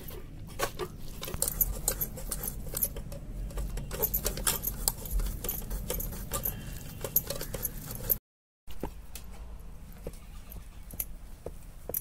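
Small steel bowl rubbed and pressed against a stainless steel mesh sieve, mashing cooked chana dal through it for puran: irregular metallic scraping and clicking. The sound cuts out completely for about half a second roughly eight seconds in.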